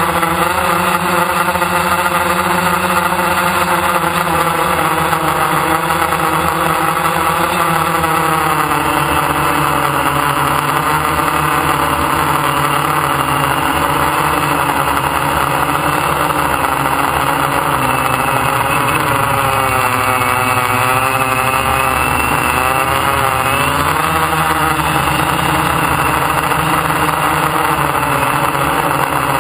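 DJI F550 hexacopter's electric motors and propellers whirring in flight, heard from a camera on the frame: a steady, loud buzzing hum made of several pitches that waver up and down, most noticeably past the middle.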